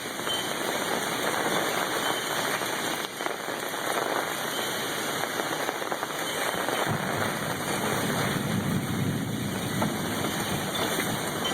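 Torrential rain from a severe thunderstorm pouring down in a steady hiss. A low rumble joins in about seven seconds in.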